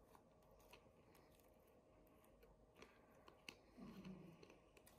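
Near silence: room tone with a few faint, scattered clicks and ticks from small slime-making materials being handled.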